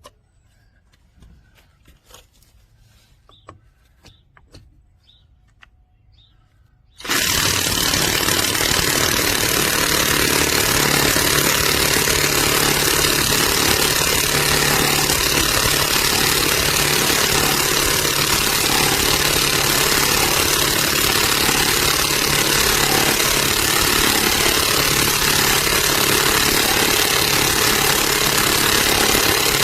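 Faint ticks and taps, then about seven seconds in a cordless impact wrench starts abruptly and runs hard with a dense, rapid hammering rattle that stays steady and loud.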